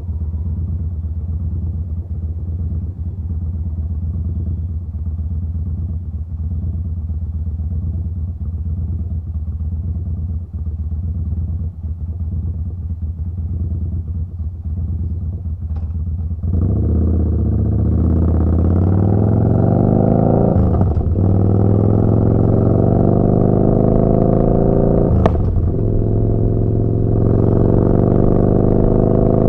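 Yamaha Bolt's air-cooled V-twin through a Vance & Hines slip-on exhaust, running steadily at low revs. About two-thirds of the way in it gets louder and the pitch climbs as the bike accelerates, with two brief dips where gears are changed.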